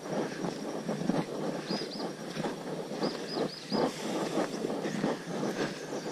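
Footsteps crunching on a gravel road as hikers walk. A bird calls in quick runs of two to four short high notes, twice.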